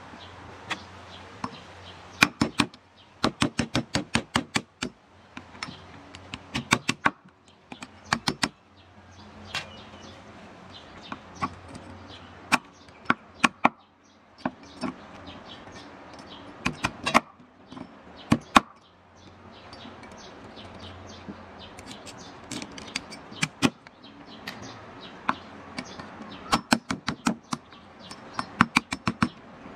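A steel cleaver chopping mud crab on a wooden chopping board. The sharp knocks come in quick runs of several strokes, with short pauses between the runs.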